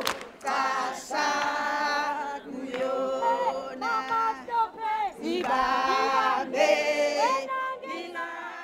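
A choir of voices singing together in long, held phrases, fading out near the end.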